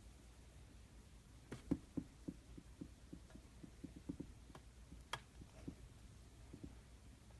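Slime being squeezed and poked by hand: a run of soft little pops and clicks, about a dozen, starting about a second and a half in, with two sharper clicks among them.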